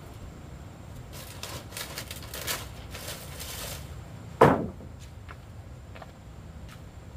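Things being handled: a few seconds of scraping and rustling, then one loud knock about four and a half seconds in, followed by a few light taps.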